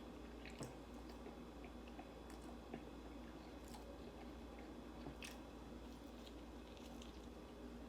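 Faint chewing of soft breakfast food, with scattered small mouth clicks over a low steady hum.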